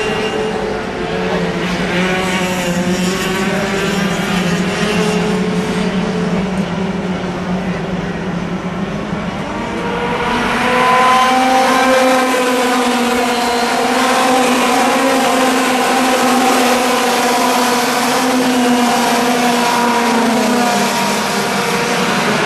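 A pack of Junior TKM racing karts, their two-stroke engines running together as several engine notes at once, rising and falling in pitch through the corners. The sound gets louder about ten seconds in as the karts come closer.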